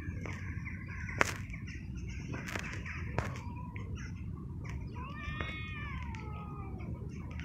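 Domestic cats crying faintly while mating, with one longer call that rises and then falls a little past the middle. A few sharp clicks, the loudest about a second in, sound over a steady low rumble.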